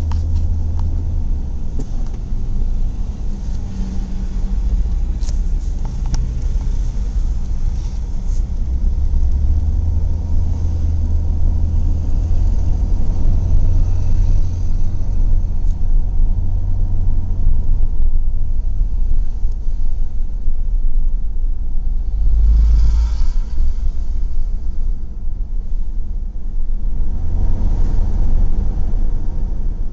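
Car interior road noise while driving at highway speed: a steady low rumble of engine and tyres, with a few faint clicks early on and two brief louder swells, about two-thirds of the way in and near the end.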